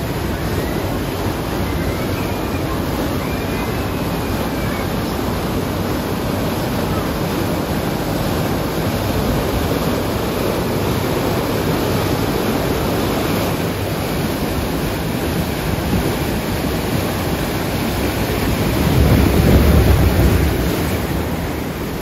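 Rushing, churning white water of a Hafema river rapids ride channel, heard from a raft riding through it, with wind buffeting the microphone. The rush swells louder and deeper about three seconds before the end.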